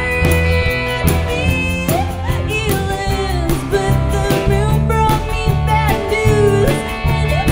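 A woman singing lead vocals with a small acoustic guitar and a second guitar accompanying her, steady low notes underneath, in a live band performance.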